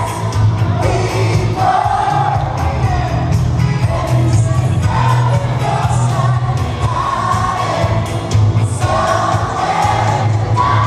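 Dance music with singing and a heavy, steady beat, played loud over a DJ sound system.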